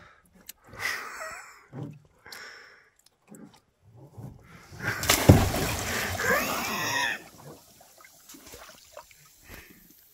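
A person jumping off a boat into lake water: a sudden big splash about five seconds in, churning and gurgling for about two seconds, then settling to gentle lapping.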